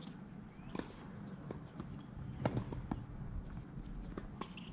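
A few scattered, irregular sharp pops of tennis balls being hit and bouncing on a hard court, over a steady low background hum.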